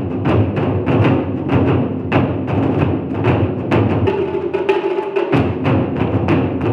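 Ensemble of Japanese taiko drums playing a steady driving beat of about three strikes a second. The drums drop out briefly about four seconds in under a held, higher pitched tone, then come back in.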